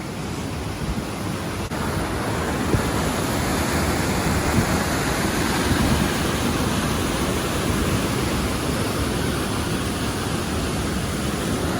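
Steady rush of a mountain creek's cascade, growing louder over the first few seconds.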